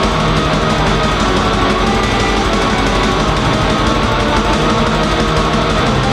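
Raw black metal music: a dense, unbroken wall of distorted, chainsaw-toned guitar at a steady, loud level.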